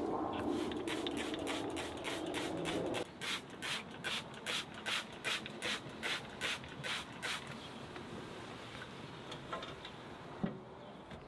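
Hand-held trigger spray bottle spritzing meat on a smoker grate: a quick run of short sprays, about two or three a second, for several seconds. A low rushing noise underneath stops abruptly about three seconds in, and a single knock comes near the end.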